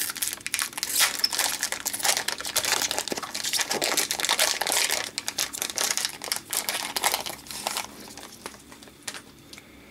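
Shiny foil wrapper of an Upper Deck Series One hockey card pack crinkling and crackling as it is handled and opened by hand. The crackling dies down about eight seconds in, leaving a few faint clicks.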